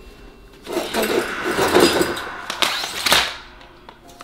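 Rustling of a heavy cloth drape being pushed aside and rummaged through, with a couple of sharp knocks about two and a half and three seconds in.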